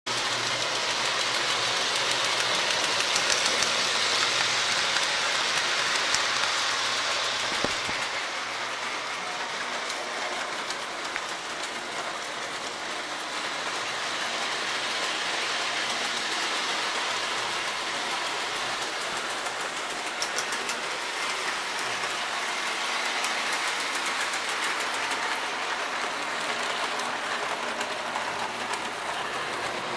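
O-gauge K-Line toy train running on three-rail tubular steel track: a steady rolling rumble from the wheels and electric motor, with light clicking over the rail joints. It is loudest for the first several seconds, then eases off and stays steady.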